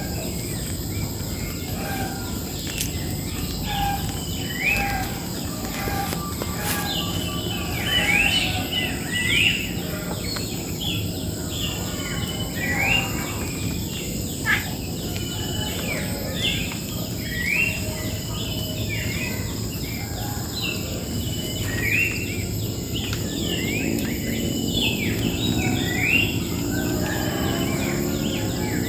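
Cucak jenggot (grey-cheeked bulbul) calling in quick, repeated short chirps throughout, over a steady insect drone.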